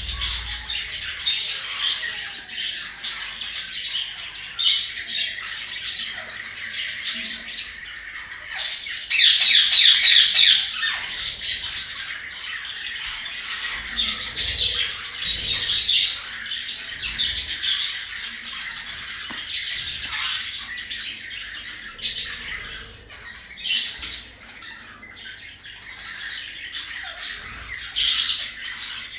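Pet budgerigars and a parrot chattering and squawking without a break, with a louder run of harsh squawks about nine seconds in that lasts around two seconds.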